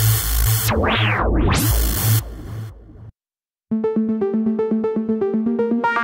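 Tone2 RayBlaster 2 software synthesizer playing its sequence presets: "High Voltage MF", a dense, noisy pattern over a pulsing bass with a sweep that falls and rises again, fades out about three seconds in. After a short silence "Honey Drops sT" starts, a fast sequence of short, bright notes, about seven a second.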